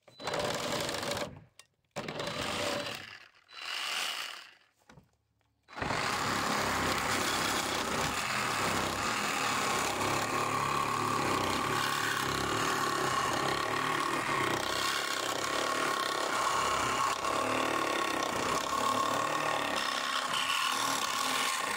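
Hychika 20-volt cordless reciprocating saw cutting pallet wood and nails with a metal-cutting blade. Three short bursts of cutting come first, then a long, even, unbroken cut through a thick pallet block from about six seconds in.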